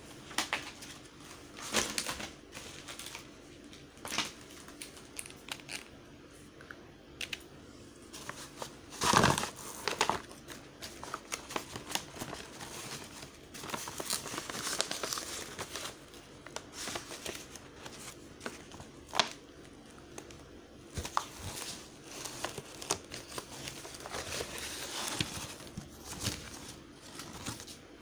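Paper rustling and crinkling as hands handle a craft of yellow paper wrapped round a tube, with scattered taps and knocks against it and the table; the loudest knock comes about nine seconds in.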